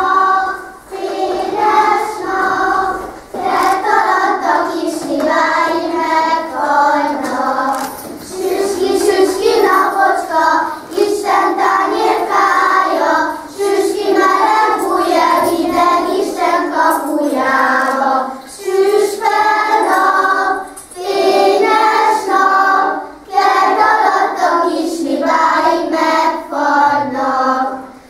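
A group of first-grade children singing a Hungarian folk song of the kiszehajtás custom together, in phrases of a few seconds with short breaks between them.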